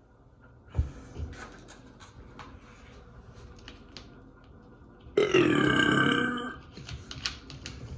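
A woman's long, loud burp lasting just over a second, about five seconds in. Scattered small clicks and rustles come before it.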